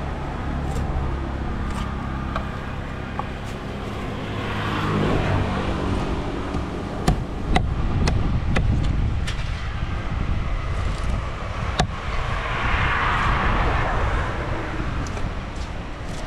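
A motor vehicle engine hums steadily in the background, with a noisy swell twice. Over it come a few sharp clicks and scraping as a large knife scales a tilapia on a wooden chopping block.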